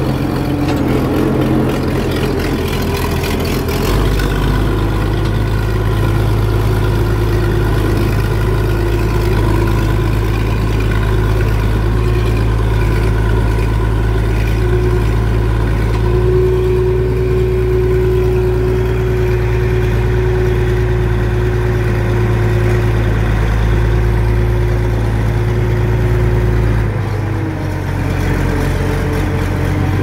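Farm tractor engine running steadily, heard from the driver's seat while the tractor is driven. The low engine note gets heavier about four seconds in and eases back down near the end.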